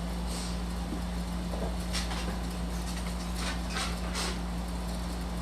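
Steady low hum with a constant tone, with a few faint, brief rustles over it.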